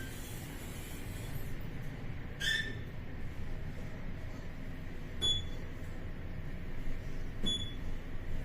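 Mitsubishi passenger lift travelling down between floors: a steady low hum from the car in motion, with three short high clicks along the way.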